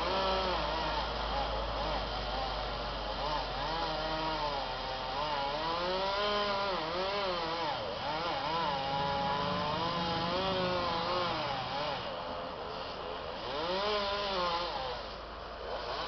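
Chainsaw running during tree removal, its engine pitch repeatedly rising and falling as it is revved and loaded in cuts. A low steady engine hum runs underneath.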